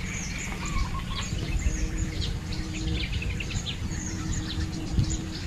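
Many small birds chirping in quick, high, downward-sliding notes, over a constant low rumble of background noise.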